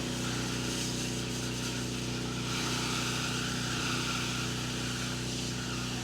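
Small engine of a soft-wash spraying rig running at a steady speed, with a hiss over it as the bleach-and-surfactant solution is sprayed onto the fence.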